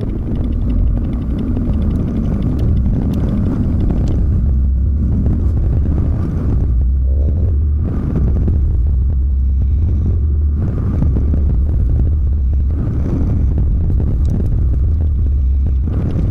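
Volvo semi truck's diesel engine running, a deep steady rumble with some rise and fall in level.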